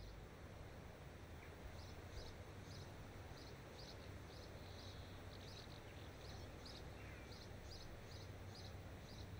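Faint outdoor ambience: a small bird repeating short, high chirps, about two or three a second, starting about two seconds in, over a low steady background noise.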